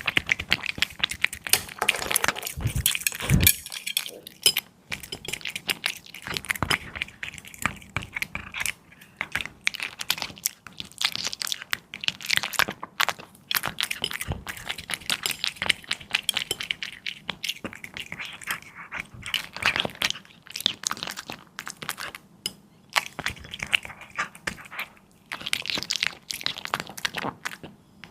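A cat chewing raw meat close to the microphone: rapid, irregular crunching and clicking chews, with a few short pauses between bouts.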